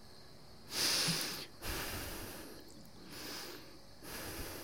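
A man's heavy breaths, partly through the nose: four in a row about a second apart, the first the loudest.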